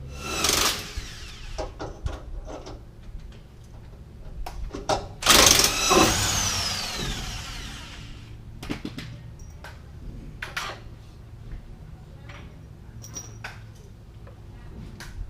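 Hand tools and metal suspension parts clanking: two loud metallic clangs that ring on, one about half a second in and a louder one about five seconds in, with scattered smaller clicks and knocks, as the panhard bar is being taken off.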